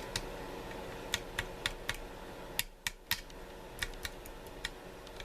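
Small sharp clicks and taps, about a dozen at irregular intervals, from the pins, springs and small metal parts of a tubular lock and the tools handling them during reassembly, over a steady low hum.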